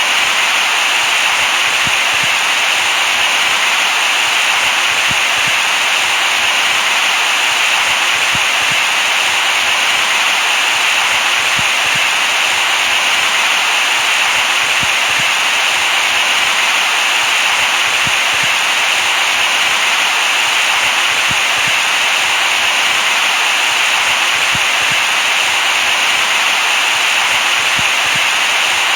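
Steady white noise hiss, loud and unchanging, brightest in the upper middle.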